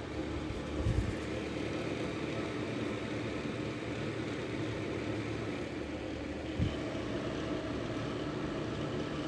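Steady electric hum and hiss of a heater running close by. Two brief low thumps come about a second in and again near seven seconds.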